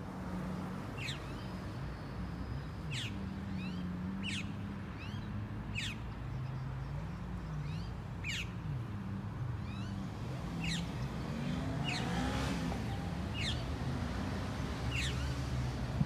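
A bird giving short, sharp chirps that sweep down in pitch, about one every second or so and sometimes in quick pairs, over a low steady hum.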